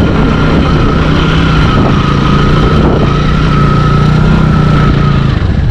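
TVS Apache RTR 200 4V's single-cylinder engine pulling steadily in first gear at low speed up a dirt slope, with a steady high whine over the engine note.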